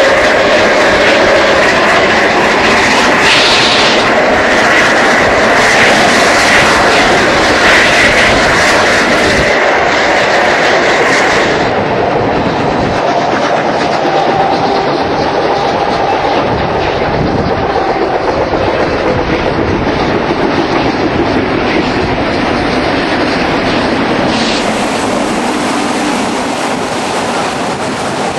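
Carriages of a steam-hauled heritage train running at speed, heard from on board: a steady rumble, with the wheels clattering over the rail joints.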